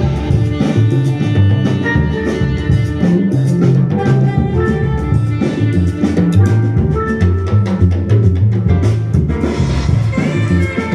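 Loud music with a steady drum beat and melody lines, played by a DJ for breakers.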